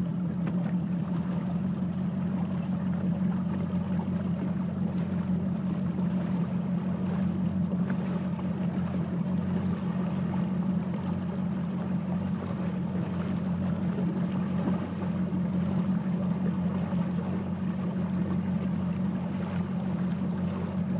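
Outboard motor running at a steady speed as a bass boat cruises across the water, with a constant rush of water and wind over the hull.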